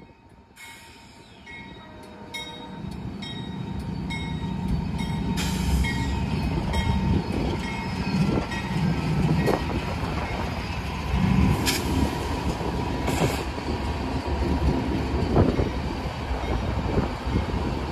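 Union Pacific diesel-electric freight locomotives rumbling past, growing louder over the first few seconds as they draw near. Sharp clanks of wheels crossing rail joints come every second or two as the locomotives and covered hopper cars roll by.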